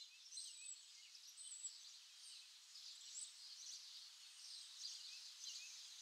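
Faint chorus of songbirds: many short, high chirps and brief song phrases from several birds, overlapping throughout.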